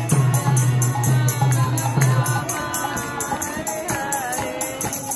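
Devotional kirtan chant: voices singing over a harmonium, with a metallic jingle keeping a steady beat of about four strokes a second. A low held harmonium note stops about two and a half seconds in.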